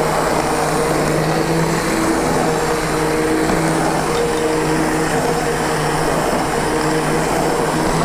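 Electric immersion (stick) blender running steadily in a bowl of gazpacho, its motor holding one steady pitch. It is puréeing the soup and blending in an olive oil and vinegar dressing.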